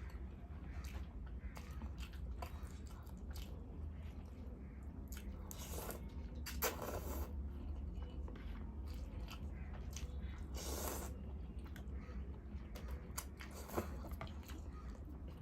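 A person chewing and eating close to the microphone, with irregular wet mouth clicks and a few longer eating noises. A steady low hum runs underneath.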